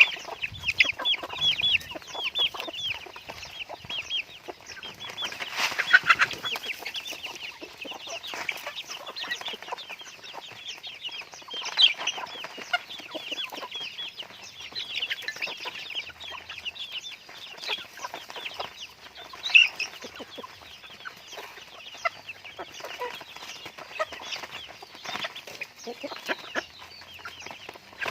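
A flock of chickens clucking and calling, many short high calls overlapping without a break, with a few louder calls standing out now and then.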